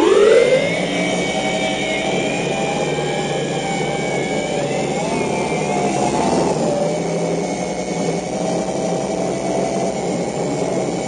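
JJRC Tarantula X6 quadcopter's electric motors and propellers spinning up for takeoff, their whine rising in pitch over the first second, then a steady buzzing whine in flight whose pitch wavers as the throttle changes.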